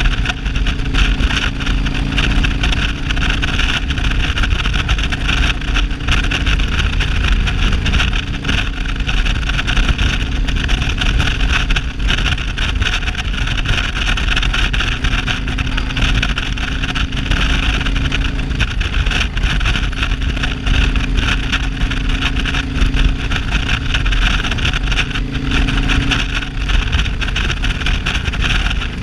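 Cruiser motorcycle's engine running steadily at road speed with wind noise, the engine note shifting slightly a few times.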